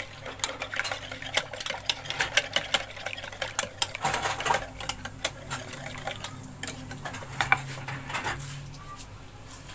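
Metal wire whisk beating yogurt with a little water in a ceramic bowl: a rapid, uneven run of clicks as the wires strike the bowl. The whisking stops shortly before the end.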